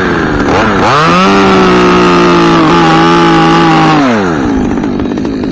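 Chainsaw engine blipped, then revved up to full throttle about a second in and held at a steady high pitch for about three seconds, before dropping back toward idle.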